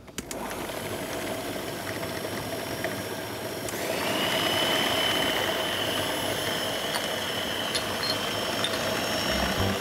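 Electric kitchen mixer running steadily, blending sweet potato pulp with yogurt and spices. About four seconds in it gets louder and a high whine comes in.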